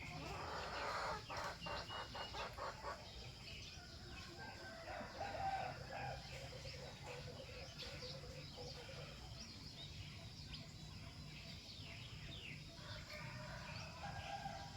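Chickens clucking and calling faintly: a quick run of short calls in the first few seconds, then longer calls around the middle and near the end, with small birds chirping.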